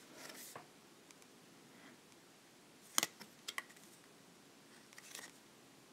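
Faint handling noises: a few scattered clicks and taps of small objects on a tabletop, the sharpest about three seconds in.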